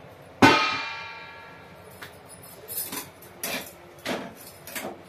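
A metal kitchen utensil struck once, about half a second in, ringing with a clear tone that fades over a second or so. It is followed by several light knocks and clatters of utensils at the stove while rotis are being cooked on the tawa.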